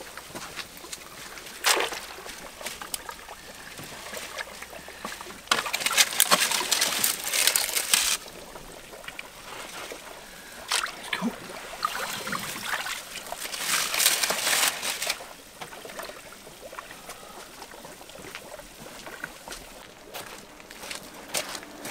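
A small fountain jet splashing steadily into the water of a pool pond, with two louder noisy spells of about two seconds each, around six and fourteen seconds in.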